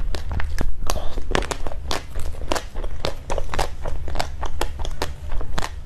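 Close-miked chewing and mouth sounds of someone eating soft mousse cake: many short, irregular clicks and smacks over a low steady hum.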